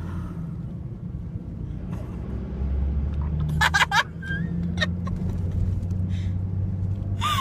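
Steady low road rumble of a moving car heard from inside the cabin, with a few brief vocal sounds about halfway through.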